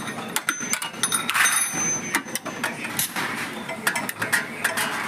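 Irregular sharp clicks, knocks and metallic clinks of metal parts being handled, with a few brief high rings.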